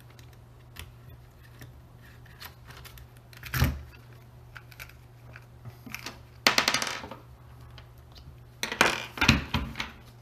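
Small combat-robot parts and hand tools being handled and set down on a wooden tabletop: scattered light clicks, a knock about three and a half seconds in, and two short clattering runs, one about six and a half seconds in and another near nine seconds.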